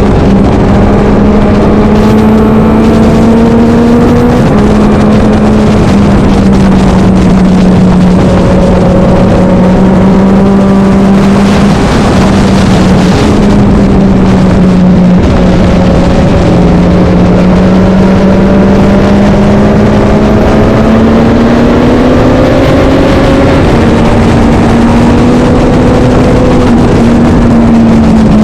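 Historic racing motorcycle engine running hard for the whole stretch, very loud, its pitch climbing slowly and then dropping sharply several times as it shifts gears and comes off and back on the throttle.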